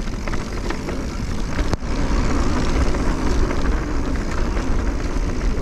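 Mountain bike ridden along a dirt trail: a steady rumble and rattle with wind on the microphone, and a sharp knock a little under two seconds in.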